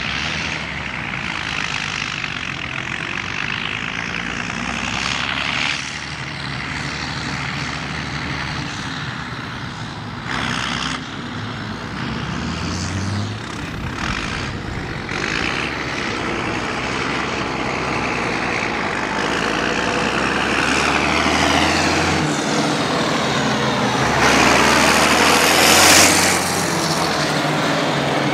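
International Harvester 3588 2+2 tractor's DT-466B six-cylinder turbo diesel running as the tractor drives. It grows louder, passes close about 26 seconds in and then falls away.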